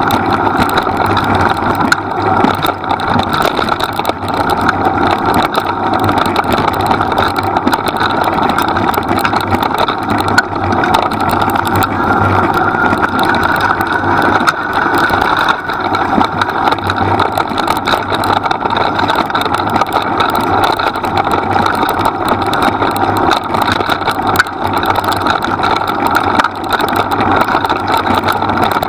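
Steady rumble and rattle of a dog-drawn training rig rolling fast over a leaf-strewn forest track, mixed with wind on the microphone.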